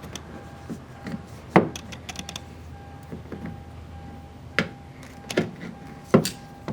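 Sharp clicks and knocks of hard plastic and metal door-handle parts being handled and pressed together, as the remote-entry button of a Hyundai Veracruz exterior door handle is pushed in to make its electrical contact. The strikes are irregular, a handful over the stretch, two of them louder than the rest.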